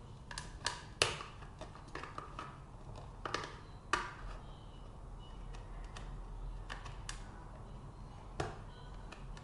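Back of a kitchen knife prying along the seam of a Seagate Expansion portable drive's plastic case: irregular sharp plastic clicks as the blade works the snap-fit clips apart, the loudest about a second in and about four seconds in.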